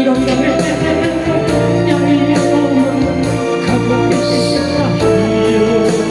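A song: a singer's voice over steady instrumental accompaniment.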